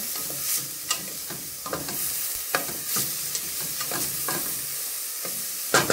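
Diced onion sizzling gently in hot oil in a stainless steel pot, with a wooden spoon scraping and tapping against the pan as it is stirred. A quick cluster of louder taps of the spoon on the pot comes near the end.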